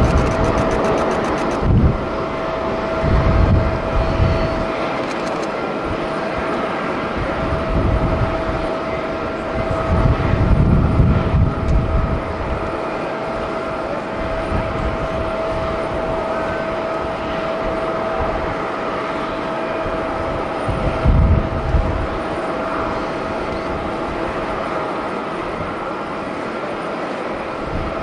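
Boeing 747-8's four GEnx turbofan engines at climb power after takeoff: a steady jet roar with a constant whine in it. Gusts of strong wind buffet the microphone several times.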